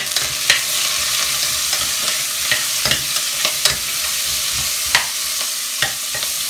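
Onion chunks sizzling in hot olive oil in a stainless steel pot, stirred with a metal spoon that clinks and scrapes against the pot again and again.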